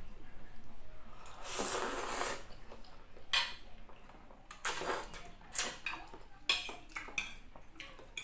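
Close-up eating sounds: a metal fork clinking and scraping against a ceramic plate in a string of sharp clicks, with a hissy slurp of noodles being sucked in.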